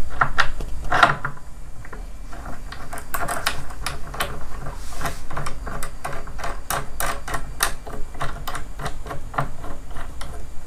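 Metal parts of a line winder's level-wind assembly being fitted by hand: a run of small, irregular clicks and taps.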